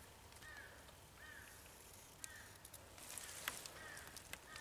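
A bird calling faintly in a repeated series of short, arched notes, over quiet woodland background.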